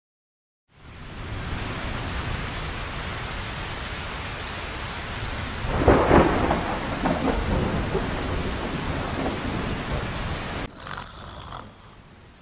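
Heavy rain fading in, with a loud thunderclap about halfway through that rumbles on for a few seconds; the storm drops away sharply near the end.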